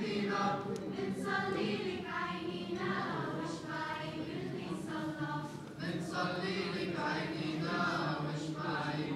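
Children's choir singing a church hymn, unaccompanied.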